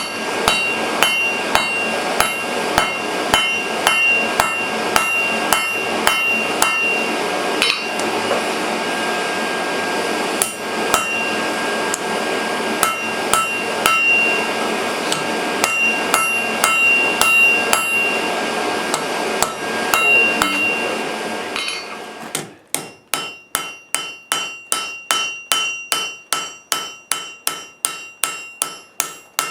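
Hammer blows on an anvil forging steel, about two a second, over a steady rushing noise. About 22 seconds in the noise drops away and quicker ringing blows follow, three to four a second.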